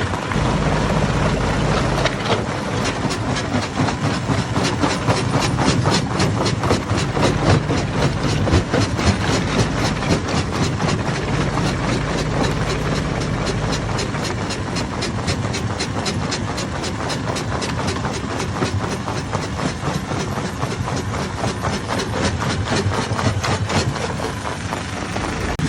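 Hammer stone crusher running, with a dense, rapid clatter of rock being broken over the steady hum of the machine.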